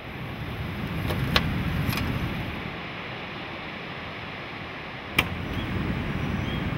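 Steady rushing of surf and wind that swells about a second in and again near the end, with a sharp click about a second and a half in and another about five seconds in.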